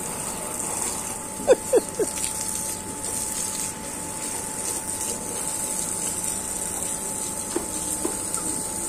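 Steady hiss and patter of a garden hose jet spraying onto a wet concrete path, with three short high-pitched sounds about a second and a half in.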